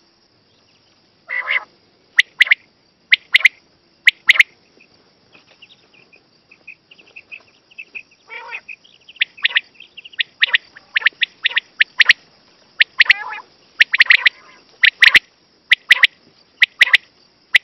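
Common quail calling over and over: short, sharp notes in quick groups of two or three, with softer chirping in a lull about a third of the way in and then the calls come thick and fast. A steady high hiss runs under the calls.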